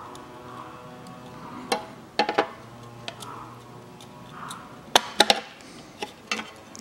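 Sharp metallic clicks and clinks of pliers working the hinge of a 2004 Toyota Harrier's fuel filler door, bending its tabs over a new pivot pin. The clicks come singly and in small clusters.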